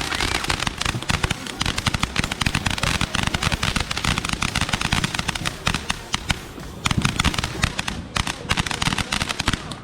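Fireworks going off in a dense, rapid run of cracks and pops, like a firecracker string. The run thins briefly about eight seconds in, then picks up again and stops near the end.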